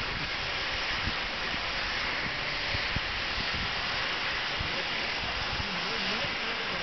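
Steady rushing hiss of a cutting torch burning through steel on a ship's hull, with a few faint knocks.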